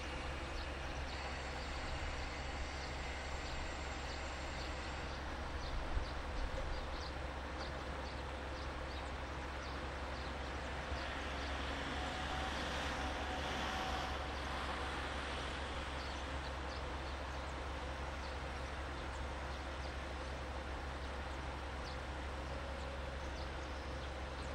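KiHa 40 diesel railcar idling at a station platform: a steady low engine rumble. A broader swell of noise rises and fades about halfway through, and there is a brief knock about six seconds in.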